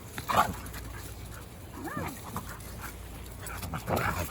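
Dogs playing, with a short bark about half a second in and a brief rising-and-falling whine about two seconds in.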